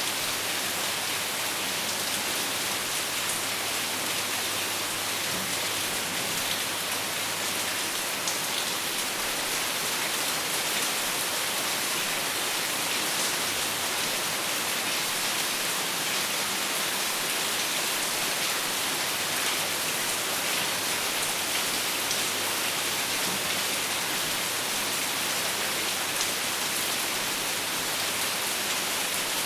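Steady rain falling, an even hiss with scattered drop ticks on a surface.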